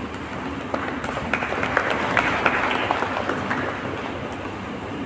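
Brief audience applause: scattered hand claps start about a second in, swell, and die away by about four seconds.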